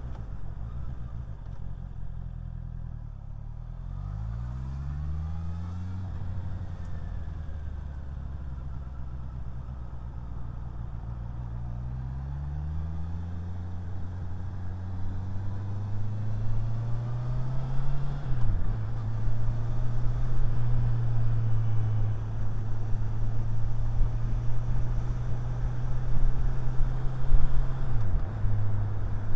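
Motorcycle engine heard from inside the rider's helmet, pulling away about four seconds in and accelerating, its pitch climbing and then dropping sharply at gear changes about eighteen seconds in and again near the end, with steady running in between.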